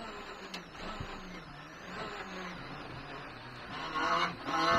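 Rally car's engine heard from inside the cabin, running at low revs off the throttle while the car slows for a corner, with a few faint knocks. Near the end it revs up under acceleration, with a brief dip in the sound, typical of a gear change.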